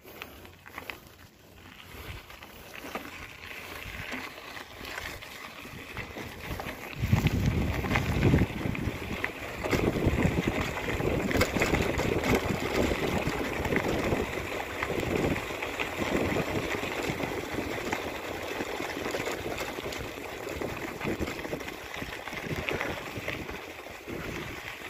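Bicycle riding on a dirt and gravel road: continuous tyre noise on the gravel, with wind buffeting the microphone. The noise gets louder about seven seconds in.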